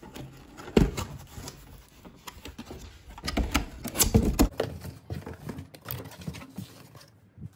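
Cardboard box being opened and handled by hand: scraping and knocking of the flaps, loudest about a second in and again in a cluster of knocks past the middle, then softer rustling as a hand handles the cloth helmet bag inside.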